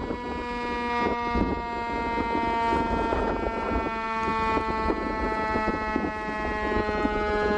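Full-scale outdoor air raid siren sounding a steady tone rich in overtones, its pitch sagging slowly as the rotor coasts down. A low rumble runs underneath.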